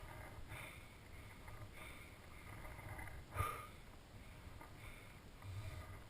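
A skier's heavy, regular breathing, picked up close by a helmet-mounted camera, over a low rumble. A single sharp knock comes about three and a half seconds in.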